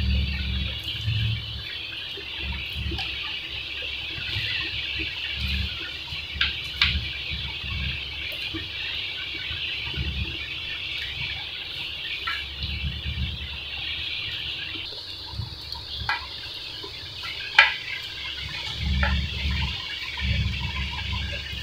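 Close-up chewing and wet mouth sounds of a person eating mutton biryani by hand, with occasional sharp smacks and clicks; the loudest comes near the end.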